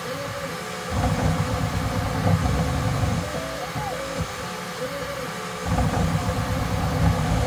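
Bambu Lab X1 Carbon 3D printer running in Ludicrous speed mode: the stepper motors whine in short rising and falling glides as the toolhead darts back and forth, over a steady fan. A louder low rumble comes in two stretches, about a second in and again near the end.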